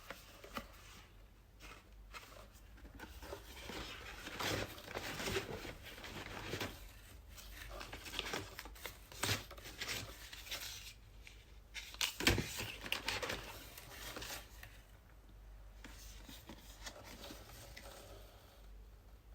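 Packaging being torn open and handled by hand: irregular rustling and tearing with a few sharp snaps, busiest in the middle, fainter near the end.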